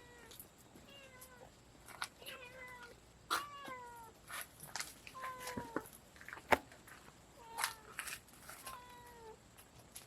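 A domestic cat meowing repeatedly, about seven short calls that each drop slightly in pitch, spread across a few seconds. Sharp clicks sound between the calls.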